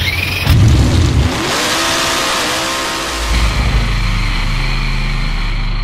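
Engine sound effect: a noisy burst, then an engine revving up with its pitch rising, settling a little past halfway into a steady low running note.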